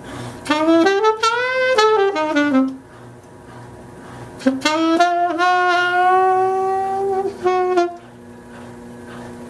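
Saxophone playing two short blues phrases, the second ending on a long held note, over the steady hum of a running washing machine.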